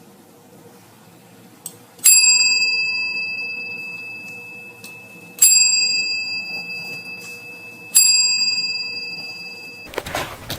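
A small bell struck three times, a few seconds apart, each ding ringing on and slowly fading.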